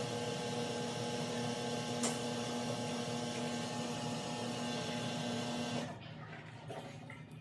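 Samsung front-load washer spinning its drum, sped up to double speed: a steady motor whine with a hum over a noisy rush of the drum. There is a single click about two seconds in, and the sound drops away abruptly about six seconds in.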